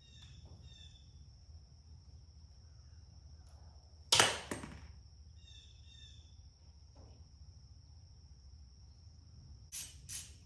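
A single sharp knock about four seconds in with a brief ringing tail, like metal struck during tractor reassembly, with a couple of lighter clicks near the end. Faint bird chirps and a steady high-pitched whine sit underneath.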